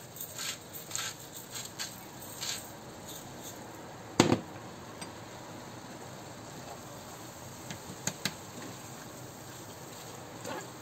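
Hand salt grinder twisted over a pan of frying mince, a quick run of grinding rasps over the first couple of seconds, then one sharp knock about four seconds in as the grinder is set down on the glass-ceramic hob. Quiet sizzling of the mince underneath, with two light spatula clicks against the pan later on.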